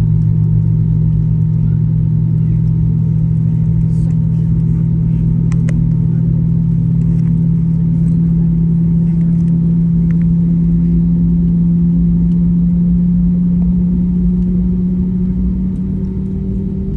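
Airbus A320neo jet engine noise: a steady, loud low drone with rumble. Its pitch rises slightly and it eases off a little near the end.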